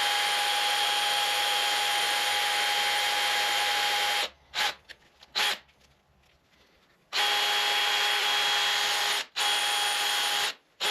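Drill spinning a wire wheel brush against metal, scrubbing old caked grease off a tractor stabilizer arm's ball joint and caps, with a steady motor whine. It runs about four seconds, gives two short blips, then starts again about seven seconds in, stopping briefly twice.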